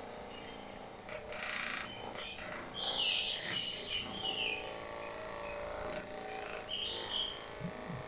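Electric percussive massage gun running against a person's back, a steady motor hum. A few short high-pitched chirps sound over it.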